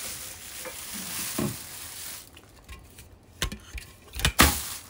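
Rustling and handling noise close to a handheld phone microphone, followed by a few sharp knocks near the end.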